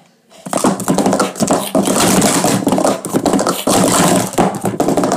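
Speed Stacks plastic sport-stacking cups being stacked up and down at speed on a StackMat. A loud, rapid, continuous clatter of cup rims clicking and sliding together starts about half a second in.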